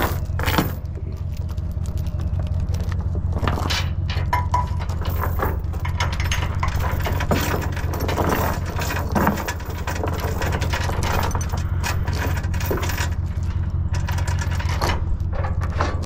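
Steel tie-down chains clinking and rattling as they are handled and hooked on a wooden trailer deck, in many short irregular clanks and scrapes, over a steady low hum.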